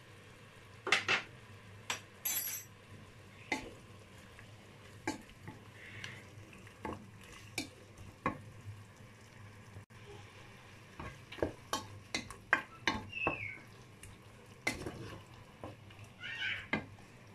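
Chicken strips frying in oil in a stone-coated non-stick pot, with a faint steady sizzle. A wooden spoon stirs them, knocking and scraping against the pot at irregular intervals.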